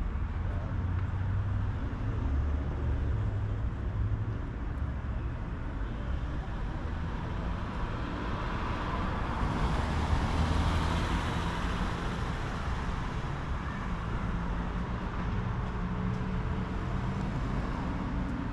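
A car drives past, its tyre and engine noise swelling to a peak about ten seconds in and then fading, over a steady background of street traffic noise.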